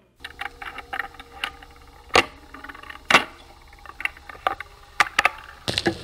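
Irregular clicks, clinks and knocks of small hard objects being handled, with two louder knocks about two and three seconds in, over a faint steady low hum.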